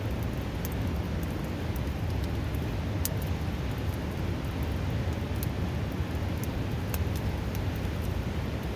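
Steady rush of a river, with scattered sharp crackles and pops from a wood campfire.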